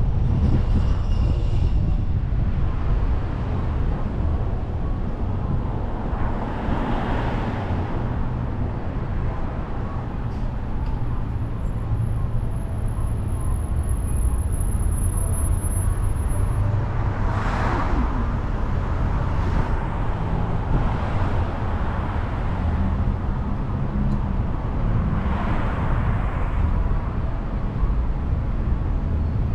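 Road noise of a car being driven on city streets: a steady low rumble, with three louder swells of traffic noise spread across the stretch.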